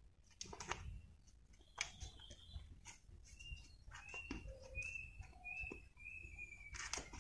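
Faint handling sounds of strap webbing being threaded into the spindle of a metal ratchet tie-down: light clicks and rustles. In the second half comes a series of short high chirps.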